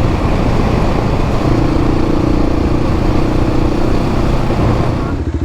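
Adventure motorcycle riding along a gravel road: the engine runs steadily under a constant rush of wind and tyre noise. Near the end the rush eases and the engine's pulsing note comes through more clearly.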